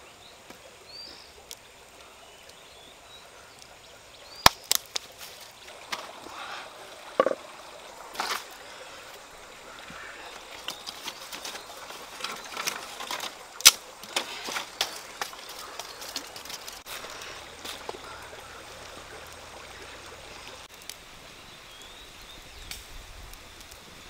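Open ember fire with beef ribs grilling over it on wooden sticks: a few sharp knocks and cracks of wood, then a stretch of quick crackling from the fire and cooking meat. Faint bird chirps near the start.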